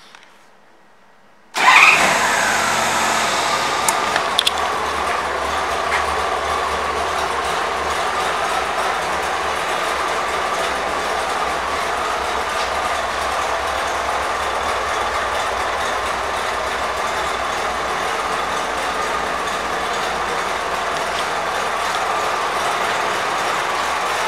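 A 1988 Honda Gold Wing's flat-six engine comes in abruptly about two seconds in, its pitch dropping over a second or so, and then settles into a steady idle.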